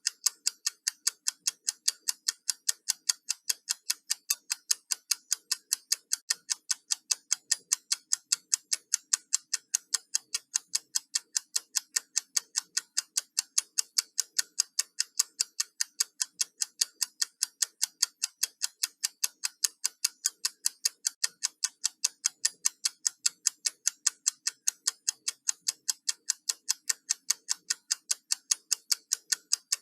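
Countdown timer ticking: sharp, crisp clock ticks at a fast, even pace of several a second.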